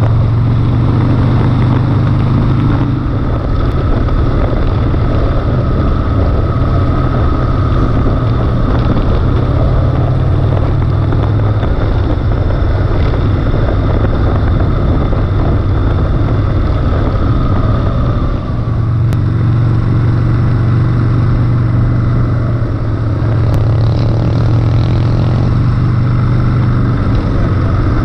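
Harley-Davidson Sportster's V-twin engine running steadily at road speed, with a brief drop in level about two-thirds of the way through.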